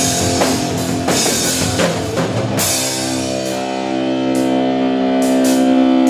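Live rock band: a drum kit played hard with bass and electric guitar. About two and a half seconds in, the band holds a long sustained chord, with a few cymbal crashes over it.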